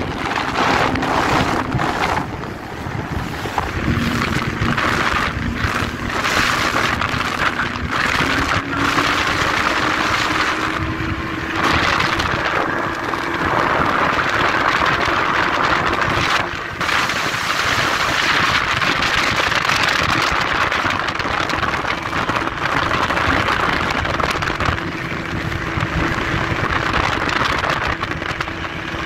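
Two-stroke Evinrude outboard on a small speedboat running at speed, its note climbing slowly over the first half and then holding steady. Heavy wind buffeting on the microphone and rushing water from the hull and wake run alongside it.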